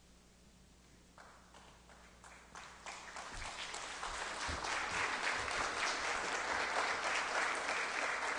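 Audience applause: a few scattered claps about a second in, building over the next few seconds into a full round of clapping from a crowd.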